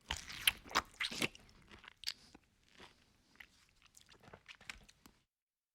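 A man biting into and chewing a peach: a few loud bites in the first second or so, then softer chewing that stops about five seconds in.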